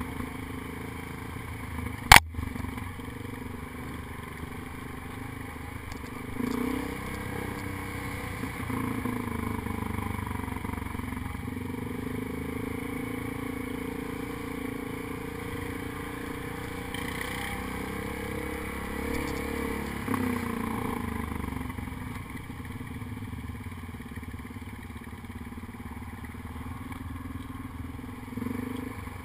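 ATV engine running as the quad rides along, picking up briefly about six seconds in and again around twenty seconds in. A single sharp knock about two seconds in is the loudest sound.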